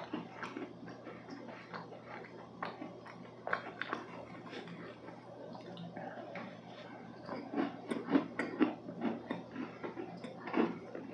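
Close-miked chewing of a soft, moist chocolate cookie: wet mouth clicks and small crumbly crackles, growing busier and louder past the middle as a fresh bite is chewed.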